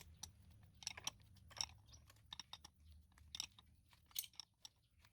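Faint, irregular clicks and crunches, a few each second, over a low steady hum.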